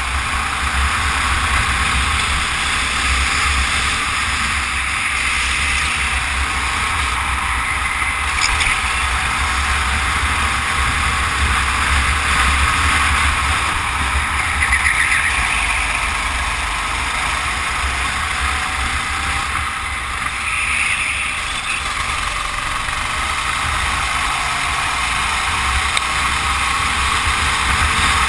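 Go-kart engine running steadily under way, with a continuous low rumble beneath it.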